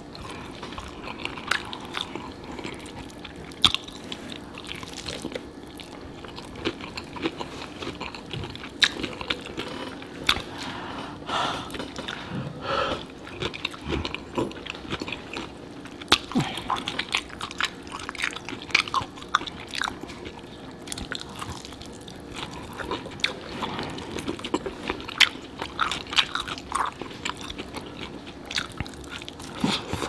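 A person biting and chewing sauce-coated fried chicken, with irregular wet smacks and sharp clicks of the mouth and food.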